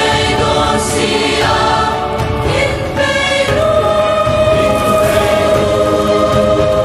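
Background music: a choir singing a slow song with long held notes.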